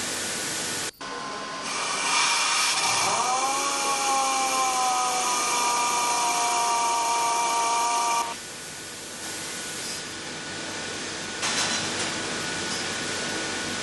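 Pneumatic valve grinder grinding an exhaust valve: its whine starts about two seconds in, rises sharply, eases down in pitch and holds steady, then cuts off about eight seconds in. A softer steady hiss continues after it stops.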